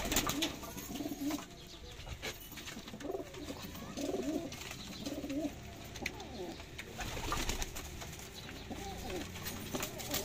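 Sialkoti pigeons cooing, several rounds of wavering coos coming and going, with a few light clicks in between.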